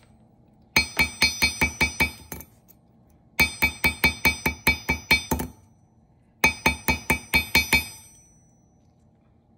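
A narrow-peened steel hammer tapping rapidly on the edge of a thin silverplate disc on a steel anvil, about four or five ringing strikes a second in three runs of seven to nine blows. The blows texture the edge of the disc.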